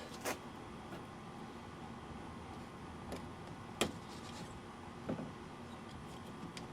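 A handful of light, sharp clicks and knocks, the loudest about four seconds in, over a steady low hiss: tools and trim parts being handled as a pickup truck door is dismantled.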